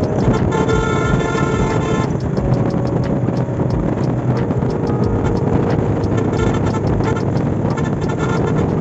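Background music with a steady ticking beat over held chords that change every couple of seconds.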